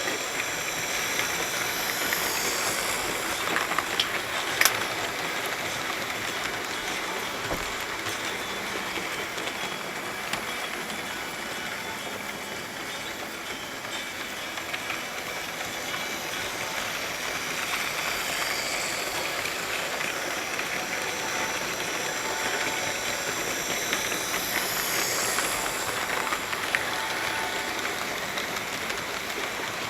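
Lima Class 31 model diesel locomotive running on model track, freshly serviced and running smoothly: a steady motor whirr and wheel rumble with occasional small clicks over the rail joints. It grows louder a couple of seconds in and again near the end as it passes closer.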